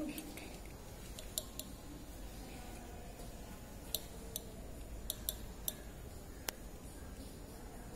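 Several light, sharp clicks and taps at irregular times, the sharpest about six and a half seconds in, over a faint steady low background hum.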